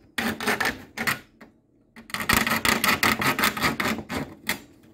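Coping saw cutting into a plastic fan trim ring, in quick back-and-forth rasping strokes. The strokes stop briefly about a second and a half in, then go on steadily and die away near the end.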